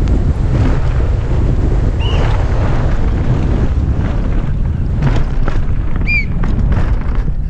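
Downhill mountain bike ridden fast over a rough dirt track: wind buffeting the helmet camera's microphone in a heavy steady rumble, with knocks and rattles from the bike over bumps. There are two brief high squeaks, about two seconds in and about six seconds in.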